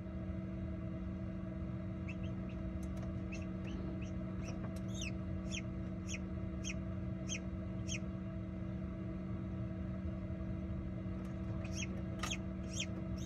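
Silkie chick peeping from inside its pipped egg during hatching: short, slightly falling peeps at about two a second, a pause, then a few more near the end, over a steady low hum.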